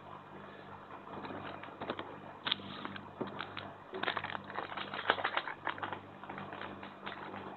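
Small foil-plastic instant-noodle seasoning sachets crinkling and being torn and squeezed by hand, irregular crackles and clicks that are thickest a little past halfway, over a steady low hum.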